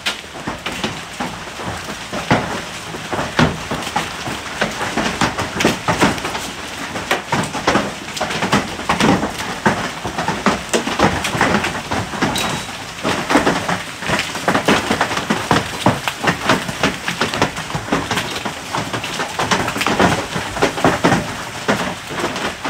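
Large hailstones pelting down in a heavy hailstorm: a dense, unbroken clatter of irregular sharp impacts over the steady hiss of rain.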